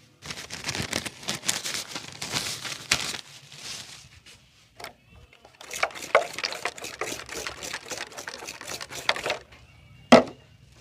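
Barber's hands working fast on a client's head and hair during a head massage: two spells of dense crackling taps and rubbing with a short pause between, then a single sharp thump near the end.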